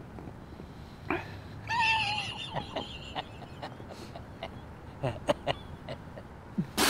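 Beer being drunk from cans: small sips, gulps and can clicks, with a short high-pitched sound about two seconds in. Right at the end comes a sudden spray as a mouthful of beer is spat out.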